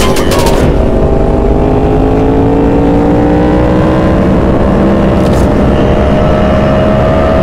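High-revving sport motorcycle engine pulling under steady acceleration, its pitch climbing slowly and evenly. Beats of electronic music stop just under a second in.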